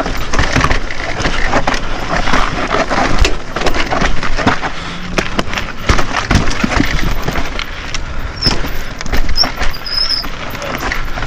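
YT Decoy mountain bike rolling down a rocky trail: tyres grinding over rock and the frame and drivetrain clattering with frequent knocks on each rock hit. A few short high squeaks come near the end.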